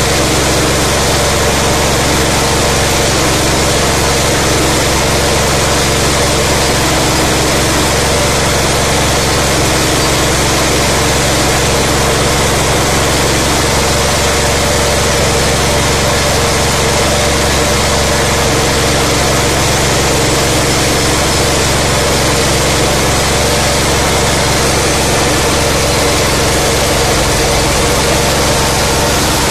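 Mini paddy huller running under load, driven by a 17 hp single-cylinder gasoline–LPG dual-fuel engine: a loud, steady mechanical din of engine and milling machinery at constant speed while hulled rice streams out of the chute.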